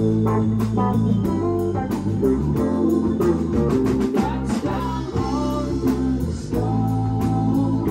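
Live rock band playing: electric guitar, bass guitar, keyboards and drums, with bending guitar notes near the middle.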